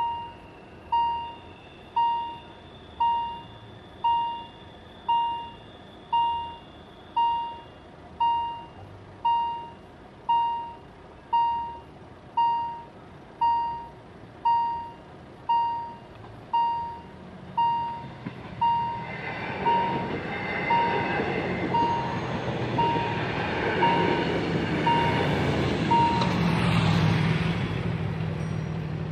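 Level-crossing warning bell ringing about once a second, each stroke a single ringing tone that fades. About nineteen seconds in, a passing train's rumble and rail noise builds and becomes the loudest sound, and the bell stops a few seconds before the end.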